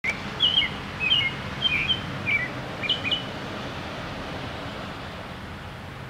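American robin singing: about five short whistled phrases in quick succession over the first three seconds, then it falls silent, leaving steady background noise.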